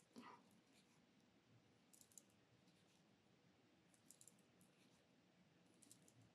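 Near silence with faint, short clicks about every two seconds from a metal crochet hook working yarn as stitches are made.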